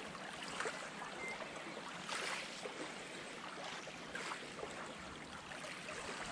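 Small waves lapping at the loch's shore: a steady wash of water with a soft swell every two seconds or so.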